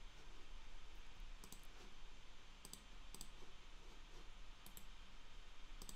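Computer mouse clicking: about five quick double clicks spread over a few seconds, faint over a steady low hum.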